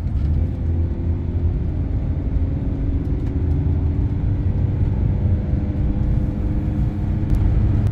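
Motorhome engine and tyre noise heard from inside the cab while driving on a winding mountain road: a steady low rumble with an even engine drone over it.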